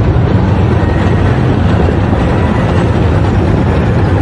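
Military tank's engine running loud and steady with a low rumble, close by.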